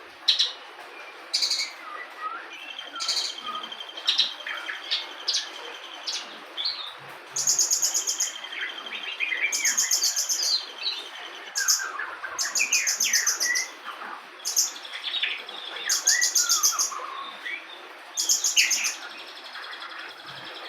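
Australasian bushlark (branjangan) singing a long, varied song of mimicked material: repeated very high, rapid trills about a second long, longer buzzy trills, and quick chirps and slurred notes between them.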